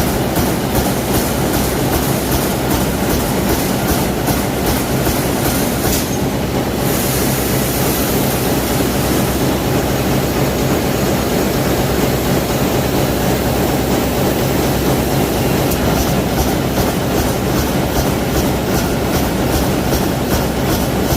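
Press machine running loudly and steadily with a fast, even mechanical clatter of about four beats a second. The clatter fades for a few seconds near the middle, then returns.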